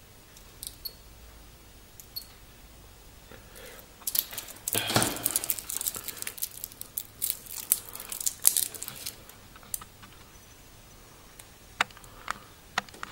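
Protective plastic film crinkling and the links of a stainless steel watch bracelet clicking as a new watch is handled. A few faint clicks at first, then busy crinkling and clicking for several seconds, loudest early in that stretch, and a couple of sharp clicks near the end.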